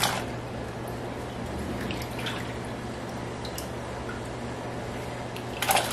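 Sliced potatoes splash into a stainless steel pot of hot water at the start, followed by a steady hiss and simmer from the pot on the stove. Near the end comes a brief metallic clatter as the pot lid is set on.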